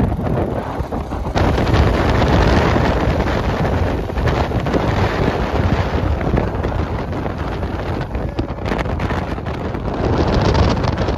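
Loud, steady wind buffeting on a phone microphone from riding on a moving motor scooter, with the rumble of the ride underneath.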